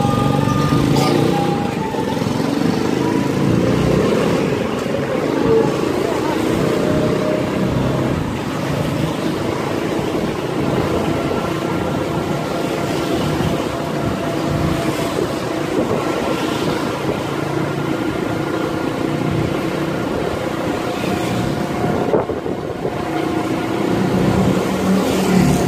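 Steady road noise from an electric tricycle under way, heard from inside its passenger cabin, with a faint steady whine running through it.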